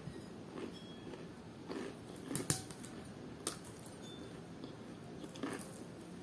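Close-miked eating: quiet chewing with a few short, sharp crisp clicks of food being bitten or crunched, the loudest about two and a half seconds in.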